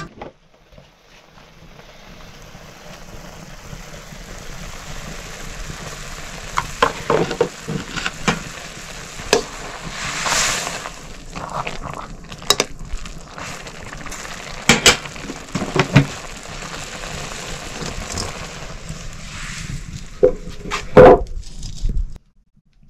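Food sizzling in a hot pan while a metal utensil stirs and knocks against it, with a steady frying hiss building up over the first few seconds. Sharp clanks come every second or two, the loudest near the end, and the sound cuts off suddenly just before the end.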